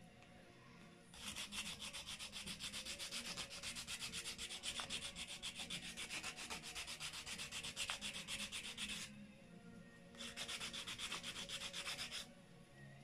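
Coarse 120-grit sandpaper on a hand-held stick rubbed in quick back-and-forth strokes over a very old, dried-out wooden tree-burl bead, a soft rasping scrape. The sanding pauses briefly about nine seconds in, then resumes for a couple of seconds.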